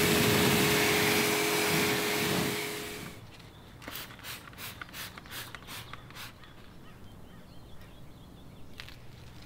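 A pressure washer spraying water, a loud steady hiss that cuts off about three seconds in. About seven quick squirts from a trigger sprayer of wheel cleaner follow.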